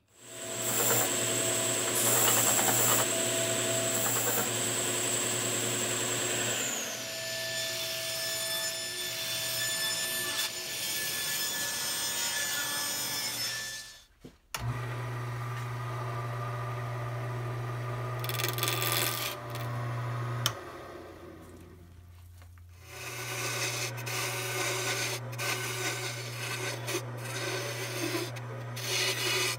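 A power tool cutting wood, then a Jet wood lathe running with a steady motor hum while a turning gouge cuts a square wooden blank round. The cutting drops away for a couple of seconds about two-thirds of the way through, then carries on.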